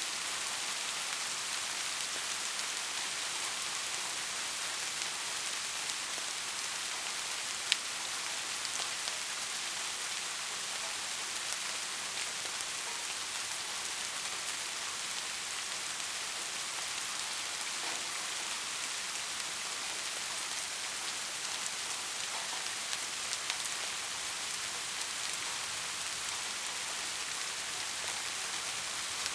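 Steady rain falling, an even hiss with scattered drop ticks and one sharper tick about eight seconds in.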